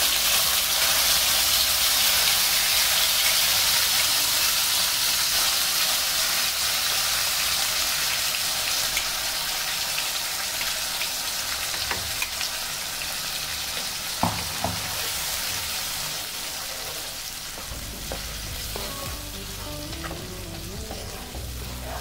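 Onion-tomato puree hitting hot oil and whole spices in a kadhai and frying with a loud, steady sizzle. The sizzle fades slowly as the puree settles in the oil, with a few sharp clicks along the way.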